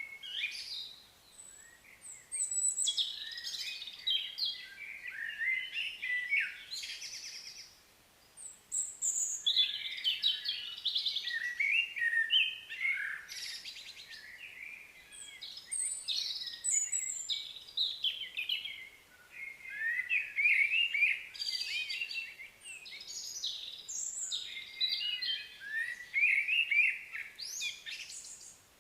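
Several small birds chirping and singing in overlapping high, quick calls, in repeated bursts with a brief lull about eight seconds in.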